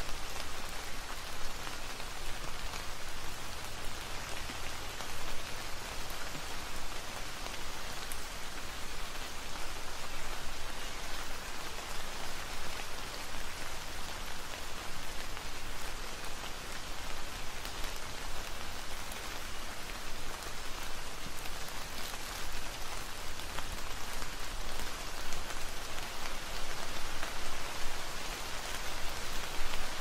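Steady rain falling on leaves: an even, continuous patter with no let-up, individual drops ticking out now and then.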